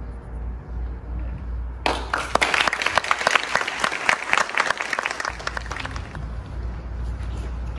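Audience applauding, breaking out suddenly about two seconds in as the piano piece ends and dying away a few seconds later.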